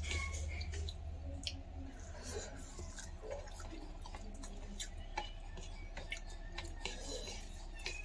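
Close-up eating sounds of egg curry and rice: scattered wet clicks and smacks of chewing at irregular times, over a low steady hum.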